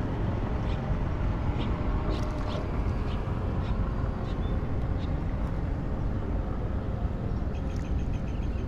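Steady outdoor background noise: an even low rumble with a few short high chirps scattered through it.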